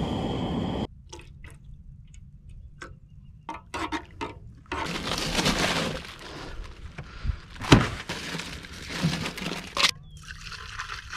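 Camp-cooking handling sounds. The first second holds the hiss of a gas camp stove and boiling water. Then come scattered clicks and knocks, a rustling burst of rummaging in a cooler, and one sharp loud knock after the middle. Near the end, hot chai pours from the pot into a cup.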